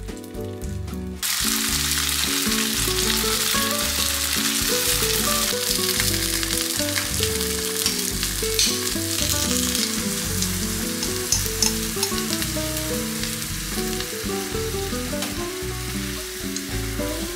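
Tofu cubes sizzling and crackling as they fry in sesame oil in a frying pan, the sizzle starting about a second in. Background music plays throughout.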